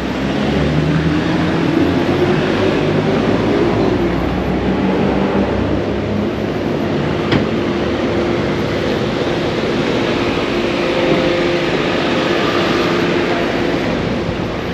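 Street traffic: a vehicle engine rising in pitch over the first few seconds, then a steady engine hum, with a single sharp click about seven seconds in.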